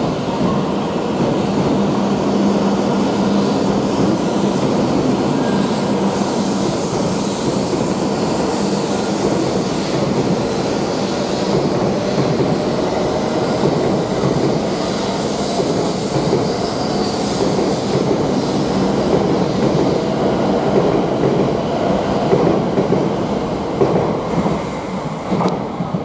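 E7 series Shinkansen pulling out along the platform: a steady rush of wheels and running gear with a low hum in the first few seconds, easing off near the end as the last cars clear.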